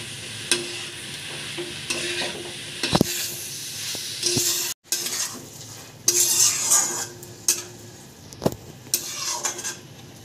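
Oyster mushrooms and onions sizzling in hot mustard oil in an iron kadai while a metal spatula stirs and scrapes them, with scattered clicks of the spatula against the pan.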